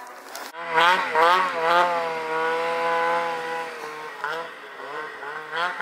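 Snowmobile engine revving under throttle as the sled churns through deep powder, its pitch sweeping up and down, holding steady for a while, then dipping and climbing again near the end.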